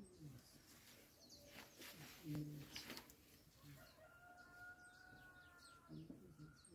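A rooster crowing once, faintly: one long, evenly held call that starts about four seconds in and lasts about two seconds.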